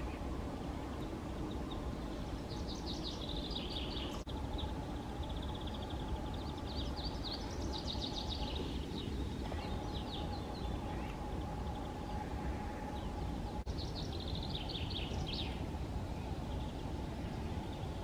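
A small songbird singing short, quick trilled phrases, three times, over a steady low background hum of the forest.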